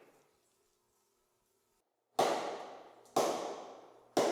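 Three sharp hits about a second apart, each ringing on in a long echoing cave reverberation that dies away before the next. These are impulse sounds for capturing the cave's reverb.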